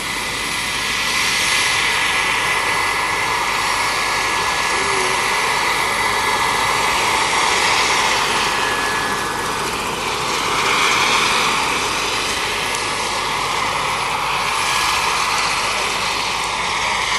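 Radio-controlled scale model Bell 412 helicopter with a small gas-turbine engine, lifting off and flying low: a steady high turbine whine over the rush of the rotor blades, swelling louder about two seconds in and again around the middle.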